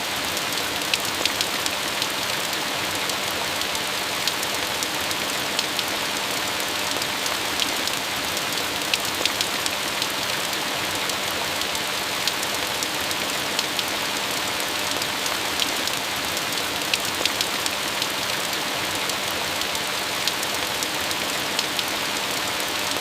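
Steady rain falling, an even hiss with many small sharp drop ticks scattered through it.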